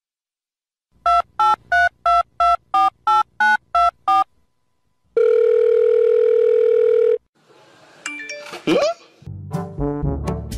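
Telephone keypad tones dialing a number: about ten short two-note beeps in quick succession, followed by one long steady ringing tone of about two seconds. A brief rising glide follows, and brass music begins near the end.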